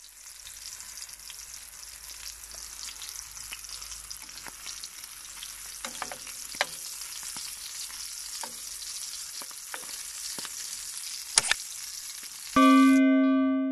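Sausage pieces sizzling in a frying pan on a portable gas stove, with a metal turner scraping and tapping the pan a few times as they are stirred. About a second before the end, loud electronic music tones come in.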